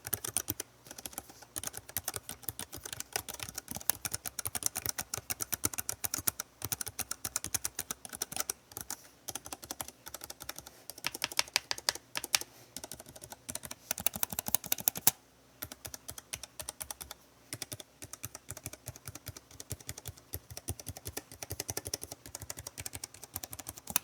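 Typing on a Keychron K3 low-profile mechanical keyboard with tactile optical brown switches: a fast, continuous run of key clicks, with a brief break about 15 seconds in.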